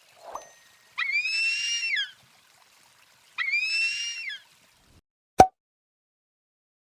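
A bird giving two calls, each about a second long and slightly arched in pitch, about a second and a half apart, followed by a single sharp click.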